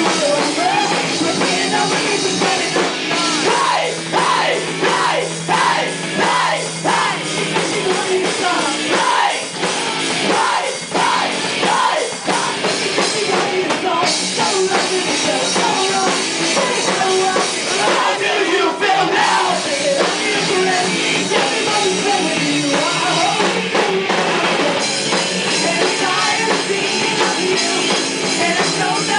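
Live rock band playing: a singer singing into a handheld microphone over electric guitars and a drum kit, loud and continuous, with little deep bass.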